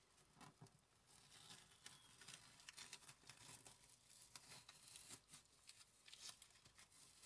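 Faint crackling and ticking of masking tape being peeled off the curb and sidewalk of a model road.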